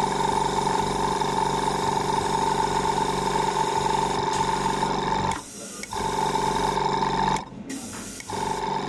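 Hand-held food spray gun buzzing steadily as it sprays a green coating onto the dessert. It cuts out about five seconds in, runs again for about a second and a half, stops, and starts once more near the end.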